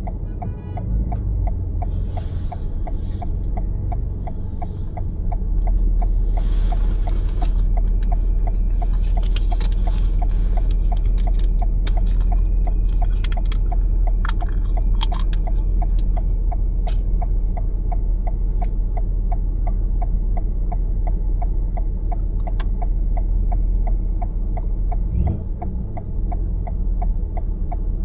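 Road and engine noise heard inside a moving car's cabin: a steady low rumble, with an even, rapid ticking going on throughout.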